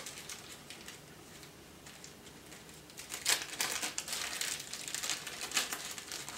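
Packaging crinkling in short bursts as a small pouch is opened and its contents handled, starting about three seconds in after a quieter stretch.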